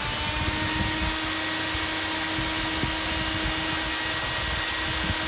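Electric radiator cooling fan running steadily at full speed on a test after being wired up, with a steady whine over the rush of air. Its pitch is still rising slightly right at the start as it finishes spinning up.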